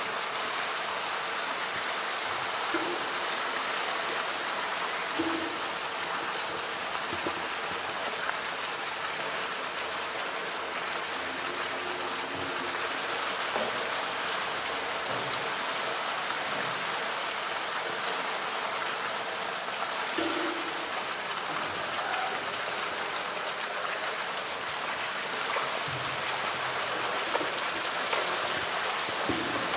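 Steady rush of running water in a polar bear pool, with a few faint knocks.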